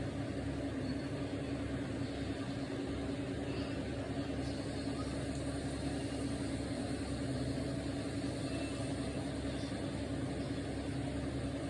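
Steady machine hum with one constant low tone and a low rumble beneath it, unchanging throughout.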